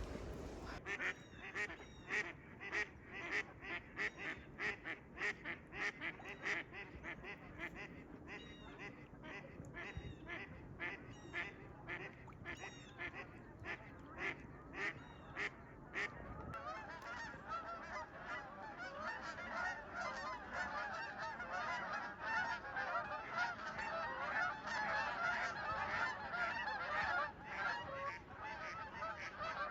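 Geese honking: single honks repeat about twice a second for the first half, then many birds call over one another in a dense, continuous flock chorus.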